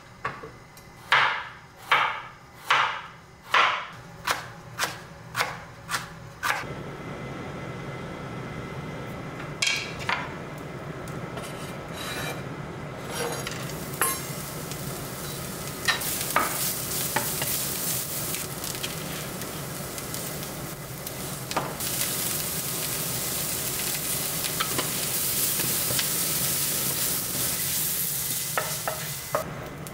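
A chef's knife chopping a carrot on a wooden cutting board: about ten sharp knocks, coming faster. Then julienned carrot sizzling in a nonstick frying pan while a wooden spatula stirs it, tapping and scraping the pan now and then; the sizzle grows louder near the end.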